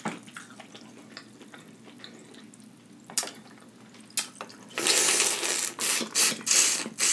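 A person sucking the juice out of a boiled crawfish head: a few faint clicks of shell handling, then, from about two-thirds of the way in, several loud wet slurping pulls.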